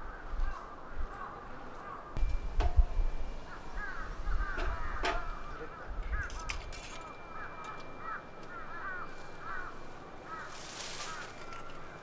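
Birds calling outdoors: many quick, short chirps in a busy, repeating chatter. There are a couple of sharp knocks, and wind now and then rumbles on the microphone.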